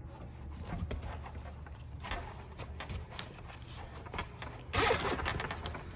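Nylon harness webbing rustling and sliding as it is threaded and pulled through a plastic tooth clip on a scuba backplate, with scattered light clicks and a louder burst of rustling near the end. A steady low hum runs underneath.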